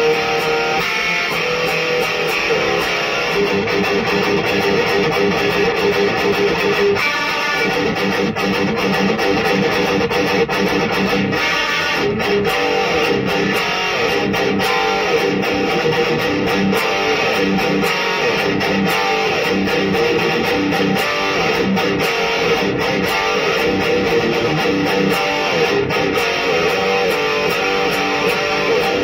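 Electric guitar riffing continuously, distorted by a Black Cat Amps Djenttonic distortion/preamp pedal and played through an Electro-Harmonix 44 Magnum power amp into a cheap Peavey 1x12 cabinet.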